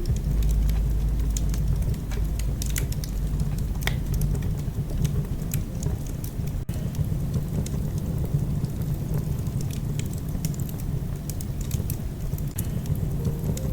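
Wood fire crackling in a fireplace, with irregular sharp pops and snaps over a low steady rumble.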